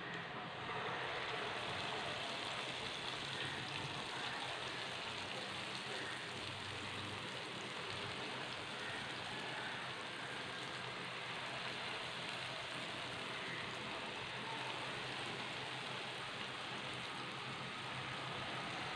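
Hot oil sizzling steadily as balls of banana-and-wheat-flour batter deep-fry in a pan; the sizzle grows louder about a second in, as a portion of batter is dropped into the oil.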